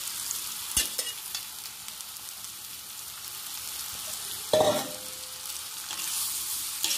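Steady sizzle of frying in a hot cast-iron wok as boiled potato pieces are tipped in and stirred with a steel spatula. Metal utensils clank sharply against the pan about a second in and again, loudest, about four and a half seconds in, that clank ringing briefly.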